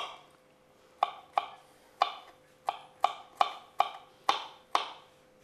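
Kitchen knife chopping a garlic clove on a wooden cutting board: about ten sharp knocks of the blade against the board, unevenly spaced at roughly two a second.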